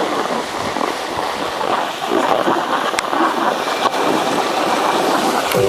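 Steady rushing and scraping of a ride over packed snow, with wind buffeting the microphone. Two sharp clicks about three and four seconds in.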